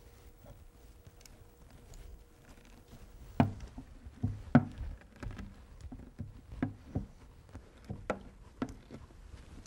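Nylon potato masher tamping shredded salted cabbage down in a plastic container: about a dozen irregular dull thumps, roughly two a second, starting about three seconds in. The packing presses the juices out of the cabbage for sauerkraut.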